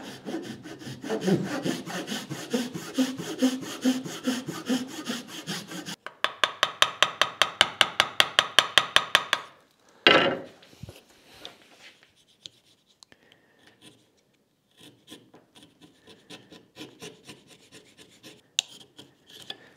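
Small hand saw cutting a shallow rebate into a wooden block: close, irregular rasping strokes for about six seconds, then quicker, evenly spaced strokes, roughly seven a second, for about three more. A single sharp knock just after ten seconds, then faint scrapes and ticks as a chisel pares the waste from the cut.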